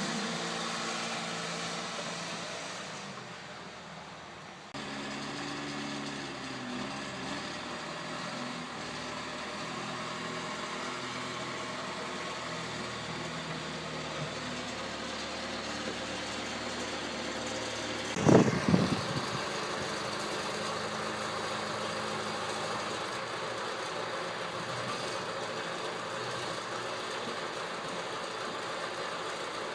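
John Deere 510B backhoe's diesel engine running steadily, with one short, loud clunk about two-thirds of the way through.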